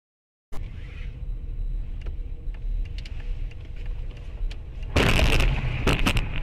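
Dashcam audio from inside a moving car: a steady low rumble of engine and road noise with small knocks. About five seconds in, a sudden loud harsh noise lasts about half a second, and a shorter one follows a second later.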